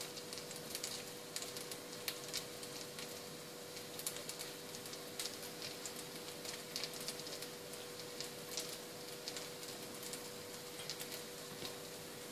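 Baghrir batter cooking in a hot buttered frying pan: faint sizzling with many tiny irregular crackles and pops as bubbles rise and burst into holes on the surface, the sign that the crepe is cooking through. A faint steady hum sits underneath.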